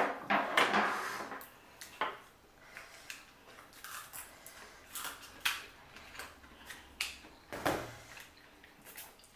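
Close-up eating sounds: kitchen scissors cutting through boiled lobster shell, chopsticks clicking against bowls, and noodles being slurped, as scattered short snips, clicks and a few longer slurps.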